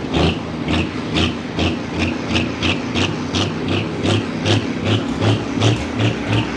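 John Deere pulling tractor's diesel engine idling at the start line, with a steady pulsing beat about two and a half times a second.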